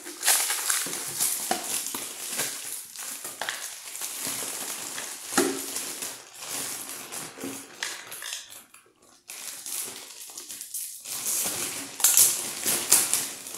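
Cardboard and plastic toy packaging being handled and pulled open: irregular scraping, tearing and crinkling with scattered clicks. There is a short pause about nine seconds in and a louder stretch near the end.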